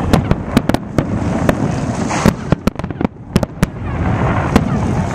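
Aerial fireworks shells bursting: an irregular string of sharp bangs over a continuous low rumble, thinning out near the end.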